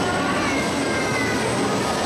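RoboCoaster industrial robot arm's drive motors running, giving faint whines that glide slowly in pitch over a steady mechanical hum and hiss.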